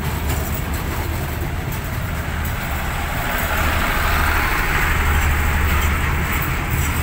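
Passenger coaches of an express train rolling past on the rails: a steady low rumble of wheels on track, with a rushing noise that swells about halfway through.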